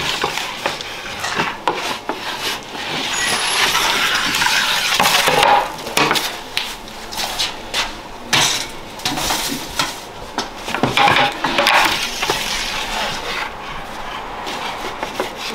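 A long wooden baker's peel scraping and knocking in the mouth of a wood-fired bread oven, against its hearth and iron door frame, in an irregular clatter of knocks and scrapes.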